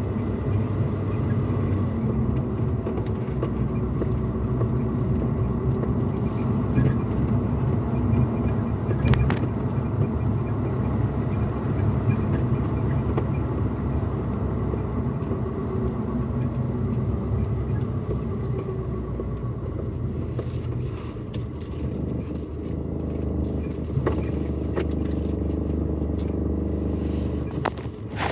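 Steady low engine and road rumble inside a pickup truck's cab while driving. After about twenty seconds the rumble eases slightly, and a few light clicks and rattles come in near the end.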